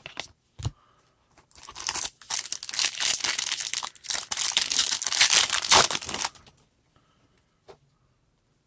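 A baseball trading card pack being torn open, its wrapper tearing and crinkling for about five seconds after a few light clicks of handling.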